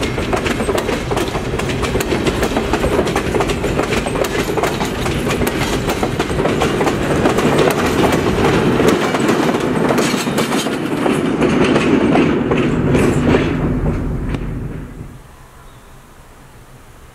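Passenger train passing close by, its coach wheels clicking rapidly over the rail joints. The louder stretch comes as the diesel switcher locomotive at the rear goes by. The sound falls away abruptly about 15 seconds in, leaving a quiet outdoor hush.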